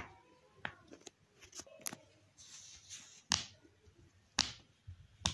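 Silicone pop-it fidget toy being pressed, its bubbles popping in a string of irregularly spaced pops, the three loudest in the second half.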